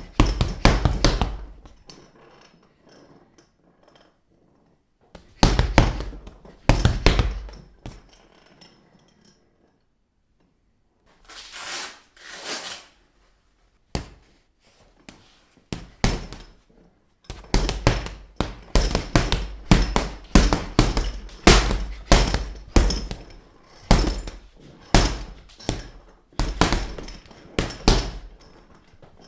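Fists and knuckles striking a punching bag: dull thuds in short clusters, then a steady run of punches, one to two a second, through the second half.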